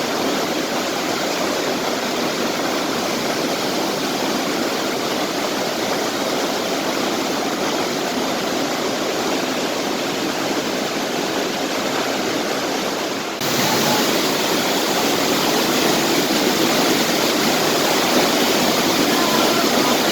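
Waterfall rushing: a steady, even noise of falling water. About two-thirds of the way through it switches abruptly to a louder, brighter rush.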